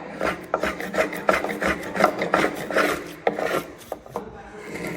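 Travisher shaving a black walnut rocking chair seat: quick repeated scraping cuts of the curved blade across the wood grain, about three strokes a second, easing off after about three and a half seconds.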